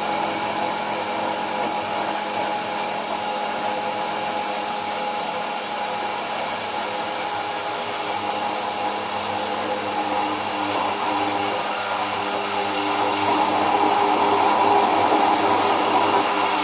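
Hand-held immersion blender running in a tall beaker, whipping egg, sunflower oil, lemon and vinegar into mayonnaise: a steady motor whine that grows louder over the last few seconds as the blender is worked up through the thickening emulsion.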